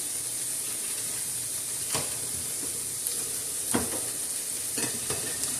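Ground meat sizzling steadily in a pot on the stove, with a few light knocks of a utensil against the pot.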